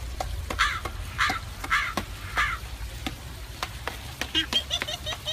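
Bird calling: four harsh calls about half a second apart, then a quick run of higher chirps near the end, with scattered clicks over a low hum.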